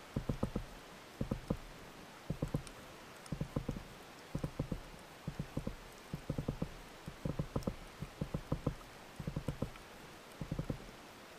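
Underwater clicking from a spearfishing fish call (richiamo) used to draw fish close: short bursts of several quick, low knocks, about one burst a second.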